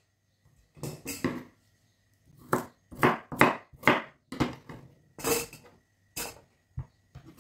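Kitchen knife chopping a carrot into chunks on a wooden cutting board: about a dozen short, sharp knocks at an uneven pace.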